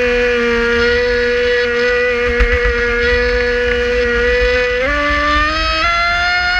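Traxxas Spartan RC speedboat's brushless electric motor whining at speed over the rush of water and wind on the hull. The pitch steps up twice near the end as the boat speeds up.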